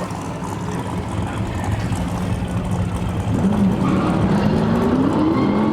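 Car engine running, then accelerating hard from about three and a half seconds in, its pitch rising steadily.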